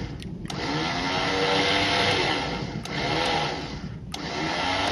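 Newly installed 9,000-pound electric winch running under its corded remote, the motor whining and changing pitch as it turns the cable drum. It stops and restarts twice, with a click at each switch.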